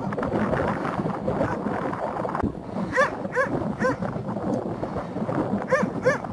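Sage Mazandarani shepherd dogs barking: three short barks about three seconds in, then three more near the end, over steady background noise.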